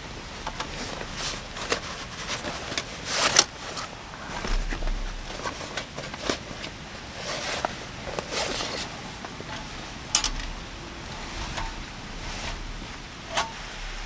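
Rustling of a fabric carry bag and light clinks and knocks of metal camp-gear parts being taken out and handled, with a louder scrape about three seconds in.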